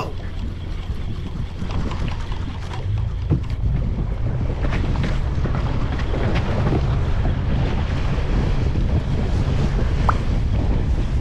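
Fishing boat under way: a steady low engine rumble that grows louder about three seconds in, with wind buffeting the microphone and the sound of sea water.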